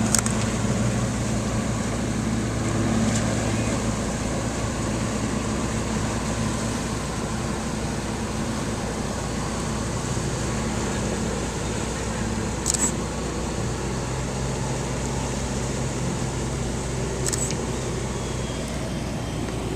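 An engine running steadily, with a few short sharp clicks over it.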